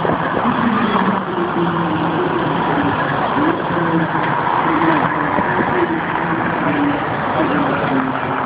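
Race-convoy cars, including a team car and a police car, driving past over a steady din of crowd voices.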